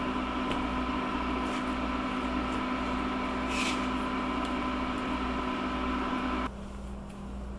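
Steady electrical hum and fan whir of a countertop induction cooker, cutting off suddenly about six and a half seconds in. Faint taps of a silicone spatula stirring ganache in a bowl.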